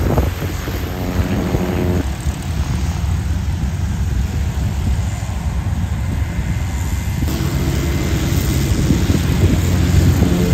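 Propeller engines of single-engine light planes running as they taxi past. The engine note fades back for a few seconds, then returns and grows louder near the end.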